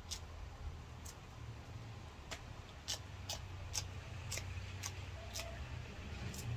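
Sharp, irregularly spaced clicks, about ten in all, as fresh Cheongyang chili peppers are cut and added to a pot of ramen, over a low steady rumble.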